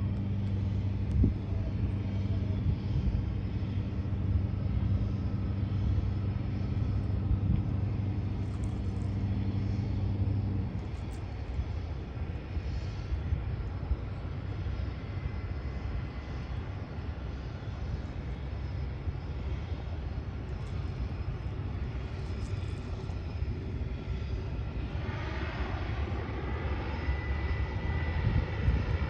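A de Havilland Otter floatplane's turboprop engine running on approach to land, growing louder near the end with a rising whine as the plane comes close. A steady low hum sits under the first ten seconds and stops abruptly.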